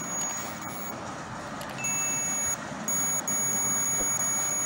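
Continuity beeper of a DT3266L clamp meter sounding through a salvaged mobile-phone speaker wired in as its buzzer, beeping as the probe tips touch. A high-pitched tone: a faint short beep near the start, a louder beep about two seconds in, a brief one just after, then held steady.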